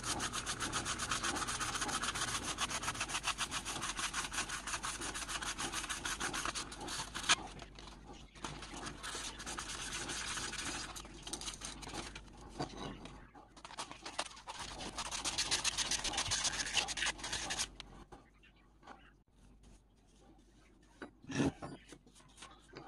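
Rapid back-and-forth hand rubbing with an abrasive on the antique screwdriver, in runs with short pauses, ending about three quarters of the way through. A light knock comes near the end.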